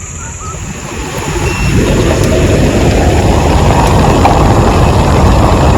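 Vehicle driving, a loud rumbling rush that builds over the first two seconds and then holds steady.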